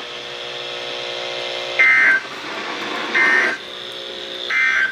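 NOAA Weather Radio SAME end-of-message code: three short, harsh two-tone digital data bursts about 1.4 s apart, marking the end of the warning broadcast, heard through the weather radio's speaker over a steady hum.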